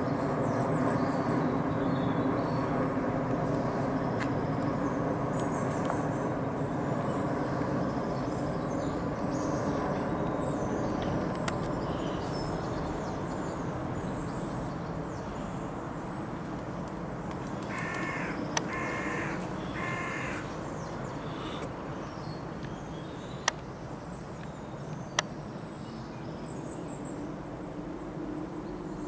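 Boeing 787-8 airliner passing overhead on descent: a steady jet rumble with a low drone that slowly fades. About two-thirds of the way through, a crow caws three times in quick succession, and two sharp clicks come near the end.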